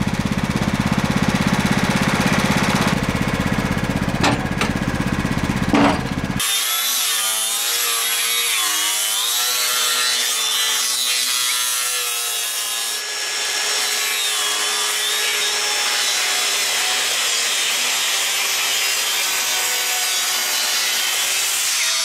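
An engine running steadily for the first six seconds or so. It cuts off abruptly to the high whine of a circular saw cutting through wood boards, its pitch dipping and recovering as the blade loads in the cut.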